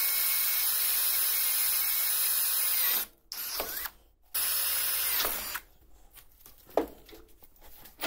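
Electric drill boring a hole through a steel angle clamped in a vise: the drill runs steadily for about three seconds, stops, then runs twice more briefly. A couple of light knocks follow near the end.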